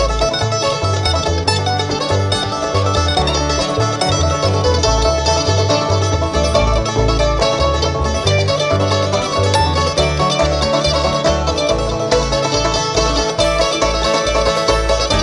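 Bluegrass string band playing an instrumental passage live: picked banjo leads with guitar and mandolin over a plucked bass line. About twelve seconds in, the bass shifts to short, quickly repeated notes.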